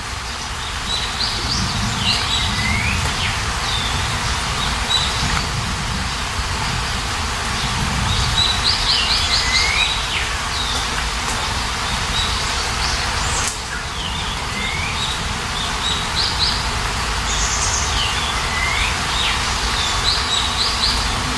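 Steady rain with a songbird singing over it. The bird repeats the same phrase several times: quick runs of high chirps and swooping notes.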